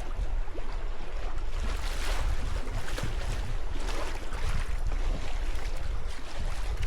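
Wind buffeting the microphone with a heavy low rumble, over water rushing and splashing along a sailboat's hull in surges every second or so.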